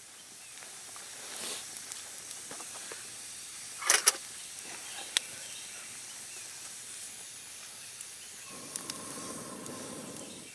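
Smouldering wood campfire hissing, with a few sharp snaps, the loudest a pair about four seconds in. Near the end comes a steady low rush of breath as someone blows on the coals to get the damp wood burning.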